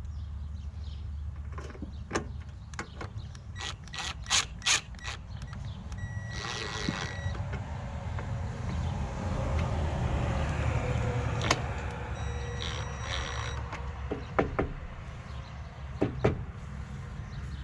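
Hand work on a Jeep Wrangler TJ's front turn signal marker light: a string of sharp clicks and knocks, with two short buzzing stretches about six and twelve seconds in, over a steady low rumble.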